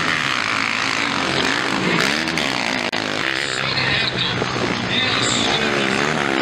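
Several motocross bikes' engines running hard, their pitch rising and falling over and over as the riders open and close the throttle through corners and over jumps.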